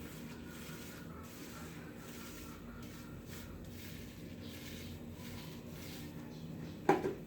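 Faint, regular strokes of paint being spread on a wall, about one every three-quarters of a second, over a low steady hum. A short louder sound comes near the end.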